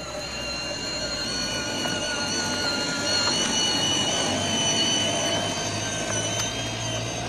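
Power Wheels Batmobile ride-on toy car driving: the electric motor and gearbox give a steady whine over the rumble of plastic wheels rolling on concrete.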